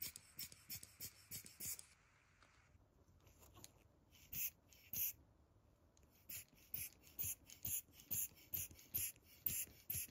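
A handheld electrostatic flock applicator is shaken in short strokes over car seat cloth to lay new fibers into a repair. It makes brief hissing rasps about three a second, in two runs with a lull near the middle.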